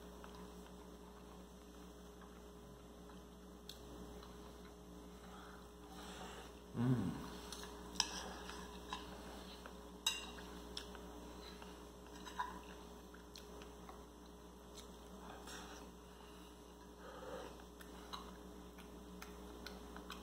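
A person eating with a metal fork: soft chewing and a few light clicks of the fork on the plate, over a steady electrical hum. About seven seconds in there is one short voiced murmur.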